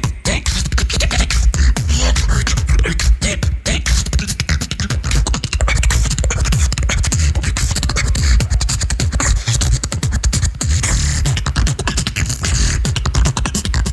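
Beatboxing: a fast, unbroken run of mouth-made drum hits, kicks, snares and hi-hat clicks, over deep bass.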